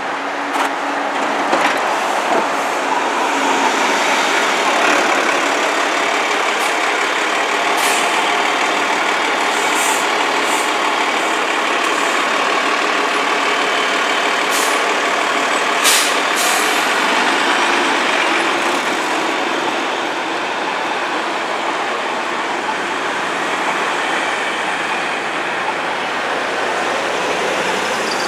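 City transit buses running and pulling through heavy street traffic, with several short air-brake hisses, the sharpest about sixteen seconds in.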